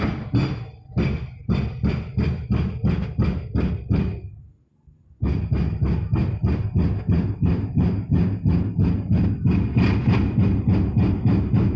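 Concrete breaker pounding a concrete bridge railing in a fast, steady rhythm of about three blows a second. It fades out about four seconds in and starts again about a second later.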